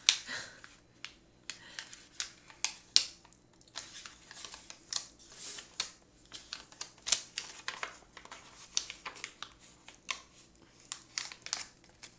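A small plastic instant-noodle seasoning packet crinkling in the hands as it is handled, in irregular sharp crackles.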